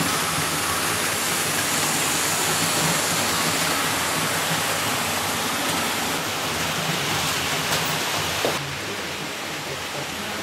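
Model electric locomotive and freight wagons running on a layout's track: a steady rushing rumble of wheels and motor. A click comes near the end, after which it runs a little quieter.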